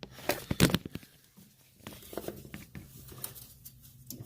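Scattered metallic clicks and knocks, a quick cluster about half a second in being the loudest, as a loosened power steering pump and hand tools are shifted about in an engine bay.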